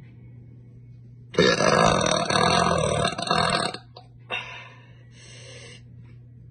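A young woman's long, loud deliberate burp lasting about two and a half seconds, starting about a second and a half in.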